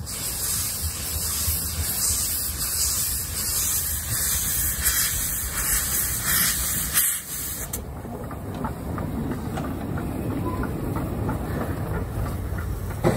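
Harz narrow-gauge steam locomotive 99 7243-1, a metre-gauge 2-10-2 tank engine, moving slowly with its cylinder drain cocks open: a loud, pulsing hiss of escaping steam that eases a little about two-thirds of the way through.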